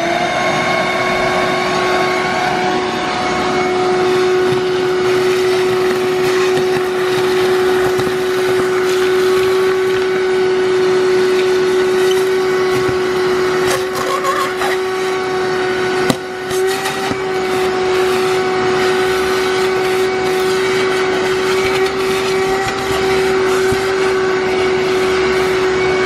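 Shop-Vac wet/dry vacuum running with a steady motor whine over a rushing hiss as its hose sucks dirt and debris off a concrete floor, with a few clicks and rattles of debris going up the hose around the middle.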